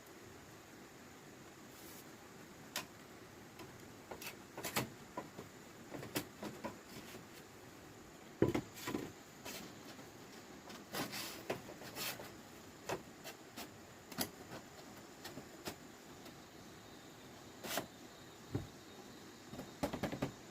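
Irregular light knocks, taps and scrapes, sometimes several in quick succession, over a faint steady hiss; the sharpest knock comes about eight seconds in.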